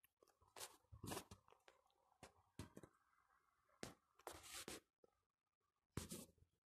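Near silence broken by faint, irregular scuffs and rustles, about eight of them, from someone walking on a paved sidewalk.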